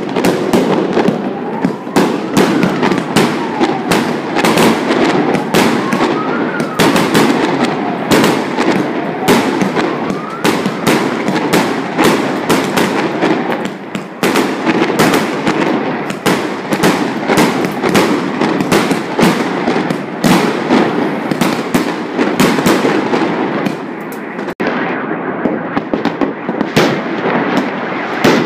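Chinese New Year firecrackers and fireworks going off nonstop: loud, rapid bangs and crackling, several a second, with heavier booms among them. Through the first ten seconds or so a wailing tone rises and falls in the background, about once every two seconds.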